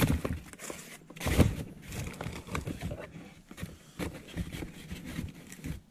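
Cardboard box dividers rustling and scraping as hands rummage through a box, with irregular small knocks and clicks, the sharpest about a second and a half in.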